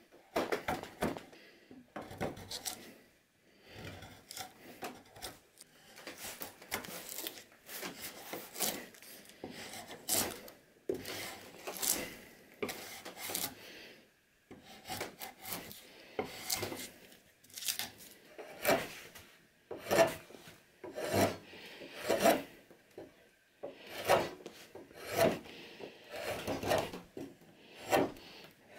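Steel blades shaving wood from a wooden handle blank: repeated scraping strokes of a drawknife and a carving knife, irregular at first, then about one stroke a second.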